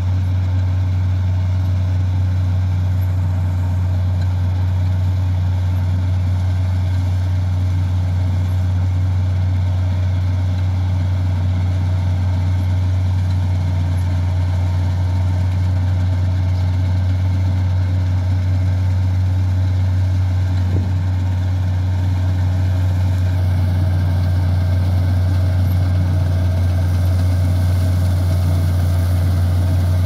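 Laverda Fiatagri 3650 combine harvester running steadily while it cuts and threshes wheat: a constant low engine drone that grows a little louder near the end as the machine comes closer.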